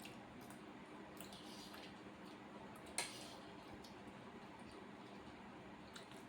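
Cutlery against a dish: one sharp clink about halfway through, with a few faint small clicks of eating, otherwise nearly quiet.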